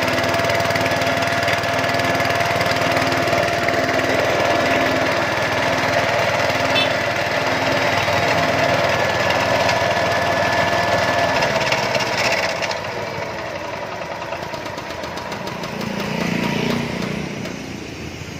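Small 7 HP gasoline engine driving a disk mill through a belt, running steadily, then throttled back or shut off about twelve seconds in. Its pitch falls and the sound grows quieter as the engine and mill wind down.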